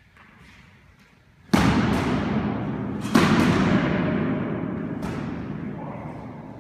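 Three heavy crashing impacts, about a second and a half, three seconds and five seconds in, the second the loudest, each followed by a long slowly fading rush of sound.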